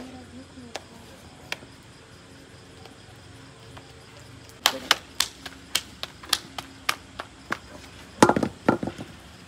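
Hands slapping balls of roti dough back and forth between the palms to flatten them for the tandoor: a run of sharp, irregular slaps starting about halfway through, with the loudest ones near the end.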